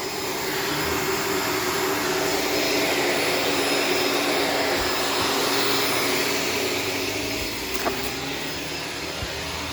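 Upright vacuum cleaner running steadily as it picks up hair from the floor, its motor a constant hum under the rush of air.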